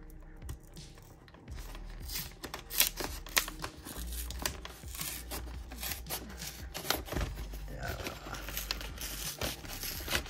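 Cardboard collector box being worked open by hand: irregular scraping, crinkling and tearing of the cardboard as it rips instead of opening cleanly.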